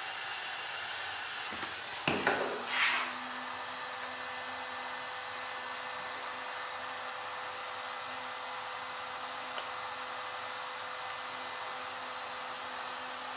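Heat gun blowing steadily, with a brief crackle about two to three seconds in.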